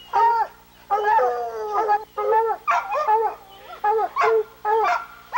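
Hunting hounds baying, a steady string of short drawn-out calls, about two a second.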